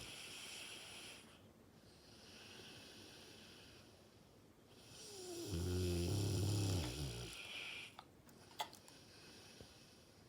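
A Dogue de Bordeaux (French mastiff) snoring in its sleep: a breathy hiss of breath, then about five seconds in one loud, low snore followed by another hiss. Near the end come a couple of faint sharp clicks.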